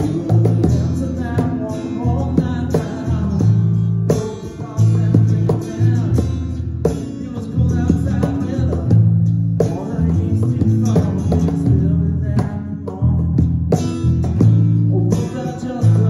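A small acoustic band playing a song: electric bass guitar, acoustic guitar and a cajón keeping the beat, with a singer at the microphone.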